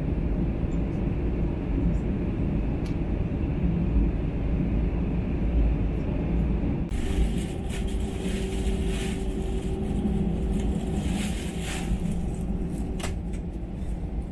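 Steady low rumble inside an airliner's cabin on the ground before takeoff. About seven seconds in, a hissing rush of air and a steady hum come in on top of it.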